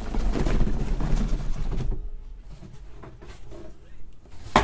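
Cardboard shipping case scraping and rubbing as it is slid up off a stack of sealed hobby boxes, for about two seconds. Then it is much quieter, and a single sharp knock comes near the end.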